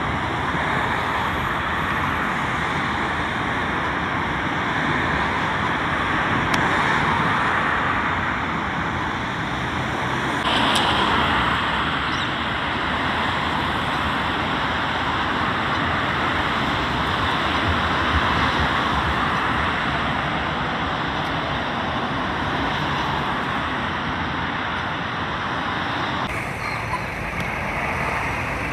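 Steady road traffic: cars driving past on a busy multi-lane road, a continuous rush of tyres and engines. The sound changes abruptly about ten seconds in and again near the end.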